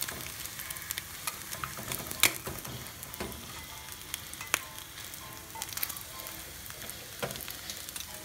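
Boiled beef and potatoes frying in oil in a pan: a steady sizzle full of small crackles, with a few louder sharp pops or clicks, the strongest about two seconds in and again about four and a half seconds in.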